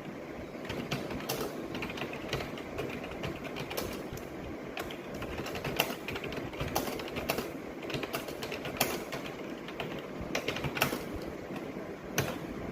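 Continuous fast typing on a computer keyboard: a dense, uneven run of key clicks with now and then a louder stroke, over a low steady hum.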